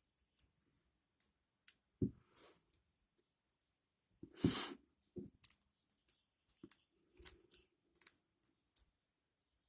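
A lock pick working the pins of an ASSA Ruko 2 padlock during single-pin picking: scattered small metallic clicks and scrapes, with one longer, louder scrape near the middle.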